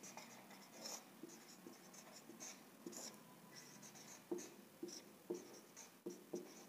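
Marker pen writing on a whiteboard: faint, short strokes and light taps as letters are drawn, growing more distinct in the second half.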